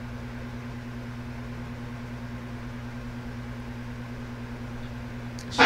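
Steady low hum with an even hiss of room noise. Right at the very end a sudden loud burst starts.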